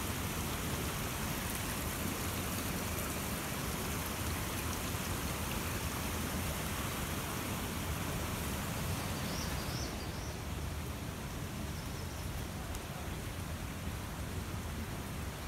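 A small woodland stream running over rock: a steady rushing, water noise that eases a little about ten seconds in.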